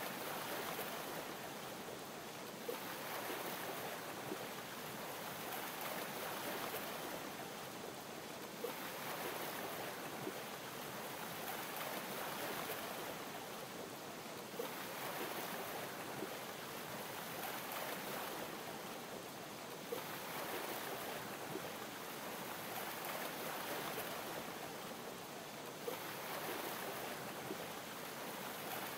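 Ocean waves lapping in slow swells, one about every five to six seconds, over a steady fizzing hiss of champagne bubbles. A few small sharp pops or clicks come through at scattered moments.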